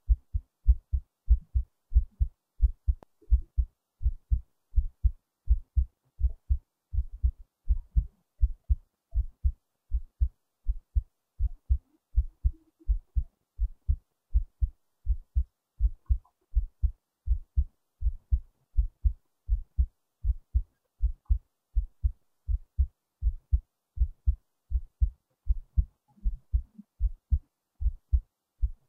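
Human heartbeat: low thumps in a steady, regular rhythm.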